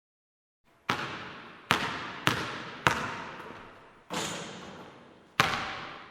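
Basketball bouncing on a hard court: six separate bounces at uneven intervals, each followed by a long echo. The fifth, about four seconds in, starts softer than the rest.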